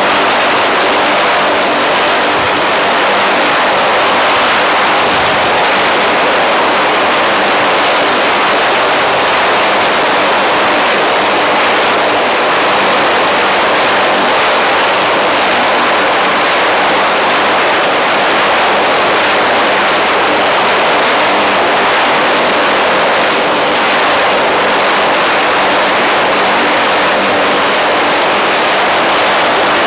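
UH-1Y Venom helicopter on the ground with its twin turboshaft engines running and rotors turning. It gives a loud, steady turbine whine over a rush of rotor noise.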